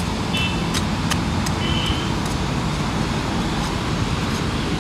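Steady hum of road traffic, with a few sharp ticks of a hand hoe (khurpi) chopping into hard, dry soil.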